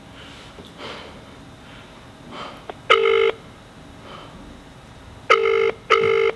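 Telephone ringing tone in the British double-ring pattern, heard as a call waits to be answered: a short ring about three seconds in, then a ring-ring pair near the end.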